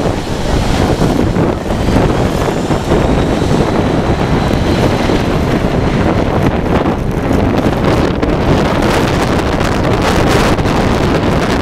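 Jet blast from a Boeing 747-400's four engines at takeoff: a loud, steady rush of jet engine noise and blasting wind buffeting the microphone.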